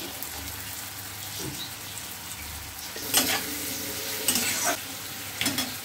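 Sliced onions sizzling in butter in a black wok, stirred with a metal spatula that scrapes and knocks against the pan several times in the second half.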